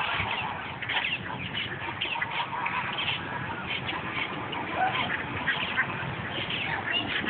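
A mixed flock of birds calling at once: ducks quacking among many short, repeated calls from other birds, with no pause.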